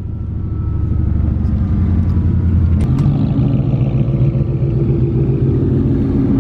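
Car engine drone heard from inside a moving car's cabin. After an abrupt cut about three seconds in, a Mustang GT's 5.0 V8 idles close by with a steady low burble.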